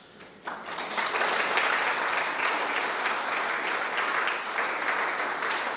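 Audience applauding, beginning about half a second in and holding steady.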